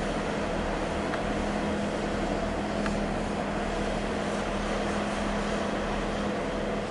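Diesel train engine idling at a station platform, a steady hum with constant droning tones.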